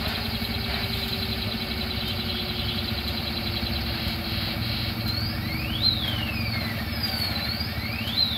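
Diesel engine of a heavily loaded 16-tyre Tata truck running steadily on a steep hairpin climb. From about halfway, a high whistling tone sweeps up and down in pitch twice over the engine.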